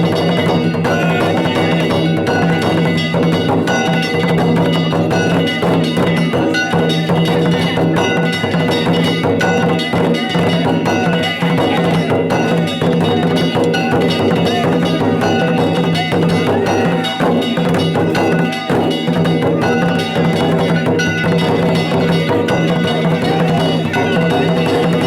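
Danjiri festival music (narimono): drums and small hand gongs struck in a steady, unbroken rhythm, with held ringing tones over the beat.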